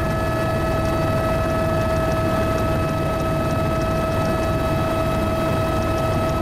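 Helicopter in flight: a steady low rumble from the rotor and engine with a constant high whine over it.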